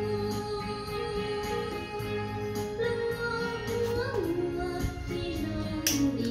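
Background music: a song with a high sung melody held in long notes that slide from one pitch to the next, over a steady repeating bass line.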